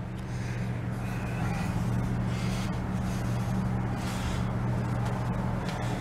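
A steady low mechanical hum, as of a room appliance running, with faint rustling from handling.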